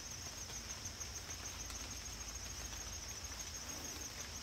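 Steady chorus of insects in the woods, a continuous high-pitched drone with a fast pulse to it, over a low rumble.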